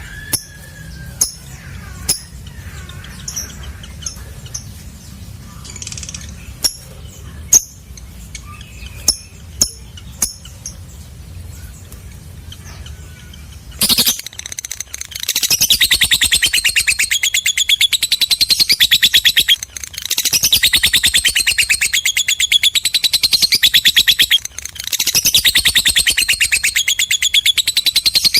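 Lovebird calling: sharp single chirps for the first half, then, from about halfway, a loud, very fast chattering trill held for long stretches with two short breaks. This is the long 'ngekek' song that lovebird keepers prize.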